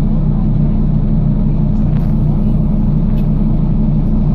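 Volvo B9TL double-decker bus heard from inside while under way: a steady, loud engine and drivetrain rumble, with a couple of faint clicks or rattles.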